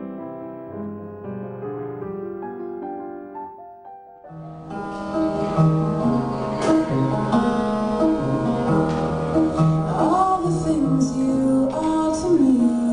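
Background music: a soft piano piece fades out over the first four seconds, then a pop song with a singing voice and a steady beat starts about four and a half seconds in.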